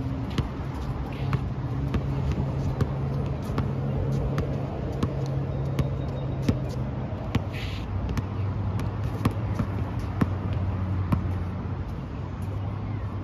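Basketball being dribbled on an outdoor hard court: a string of sharp bounces, about one or two a second, over a steady low hum.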